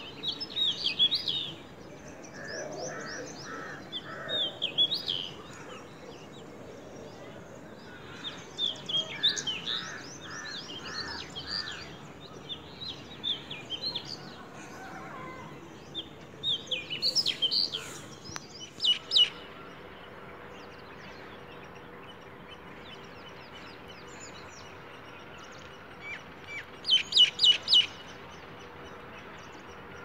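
Several birds singing and chirping in short scattered bursts of high, quick notes, with a lower call of three or four evenly spaced notes repeated twice, over a steady outdoor background noise. A faint steady hum sets in about two-thirds of the way through.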